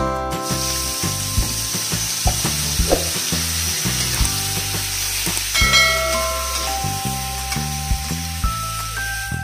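Raw squid pieces dropped into hot oil in a wok, sizzling strongly from about half a second in, over background music.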